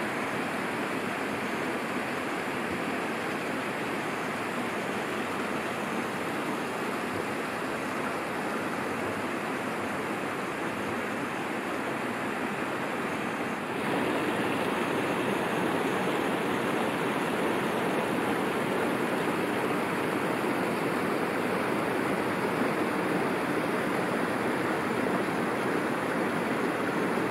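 Steady rush of running and splashing pool water, a little louder from about halfway through.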